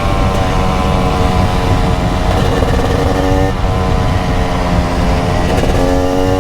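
TM SMR 300's single-cylinder two-stroke engine running under throttle while riding: its pitch sinks for the first couple of seconds, then climbs in pulls, broken by two sudden drops about three and a half and five and a half seconds in, like upshifts.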